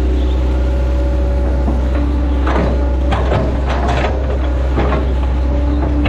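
Hitachi Zaxis 110 excavator's diesel engine running steadily with a low hum. From about two and a half seconds in, a series of clanks and knocks from the bucket and boom linkage as the bucket is pressed down on the mud bank.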